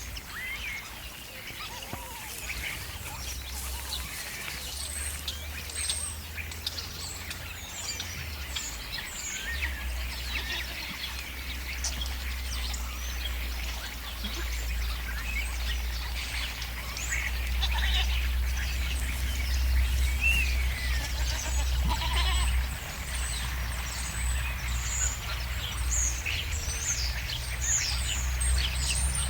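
Goats bleating now and then over the constant chatter of a flock of starlings, many short whistles and squeaks overlapping. A steady low hum runs underneath.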